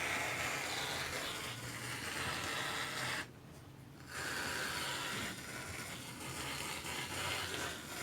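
Shaving cream aerosol can spraying foam: a steady hiss in two long bursts, with a short break about three seconds in.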